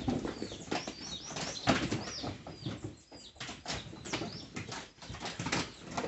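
Irregular knocks and rustles of cassava roots being thrown and landing against one another on a pile, with short bird chirps over them.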